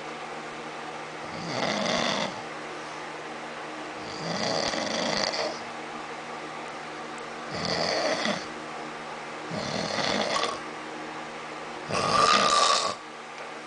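A man snoring in his sleep: five snores about two and a half seconds apart, the last one the loudest, over a steady low hum.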